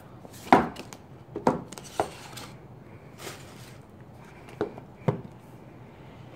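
Small cardboard box being handled on a table: five sharp knocks and taps, the first the loudest, with a brief brushing slide of cardboard a little after three seconds.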